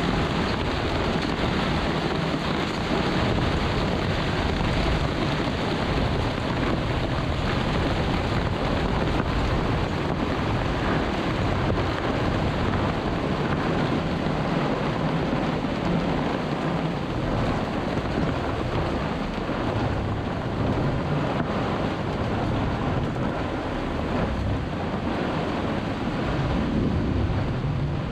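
Microburst storm wind blasting across a sailboat's cockpit, heavy wind noise on the microphone mixed with rain and rough sea. The noise is a steady, unbroken rush with no let-up.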